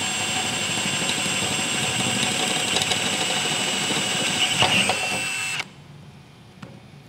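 Cordless drill boring a 3/16-inch hole through a metal coolant riser tube, enlarging a pilot hole: a steady high whine with the bit cutting metal, cutting off suddenly about five and a half seconds in, followed by one faint click.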